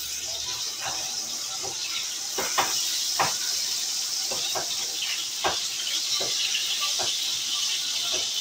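Hamburger patties sizzling in a frying pan, a steady hiss, with a metal spatula scraping and tapping against the pan about once a second.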